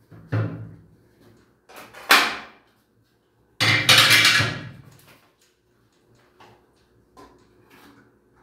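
Metal clanks and clattering from handling the pipe fittings and tools under a wall-mounted electric water heater: a sharp clank about two seconds in, then a louder rattling burst that dies away over about a second and a half, followed by small knocks.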